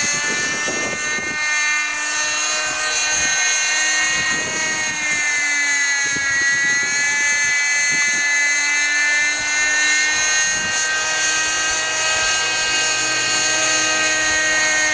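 Nitro glow engine and rotors of a G-Smart 18-size RC helicopter in flight, a steady high-pitched whine whose pitch dips slightly about six seconds in and then recovers.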